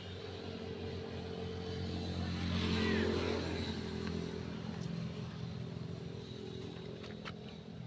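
An engine hums steadily at an even pitch, growing louder to a peak about three seconds in and then slowly fading, with a few faint clicks near the end.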